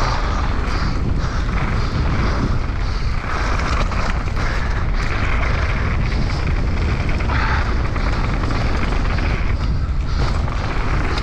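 Enduro mountain bike ridden fast down a dirt trail: a steady rumble of wind on the microphone and tyres rolling over dirt, with occasional knocks from the bike over rough ground.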